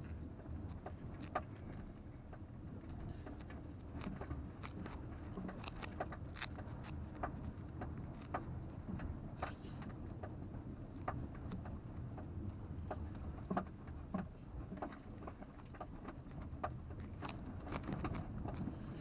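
Inside the cabin of a 2020 Toyota RAV4 XLE driving over a rough dirt trail: a steady low rumble of engine and tyres, with frequent irregular sharp clicks and knocks from the car jolting over the uneven ground.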